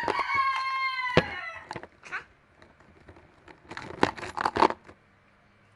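A girl's voice briefly at the start, then a sharp click and, about two-thirds of the way in, a quick cluster of clattering and rustling as small objects are handled, with a colour stick drawn at random.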